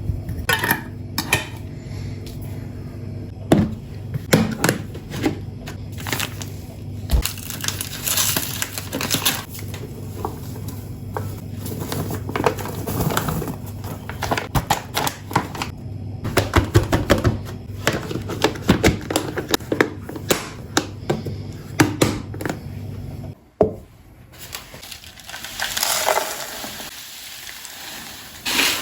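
Kitchen storage containers and jars being handled and set down: many quick clicks, taps and clinks. A steady low hum underneath cuts off about three quarters of the way through.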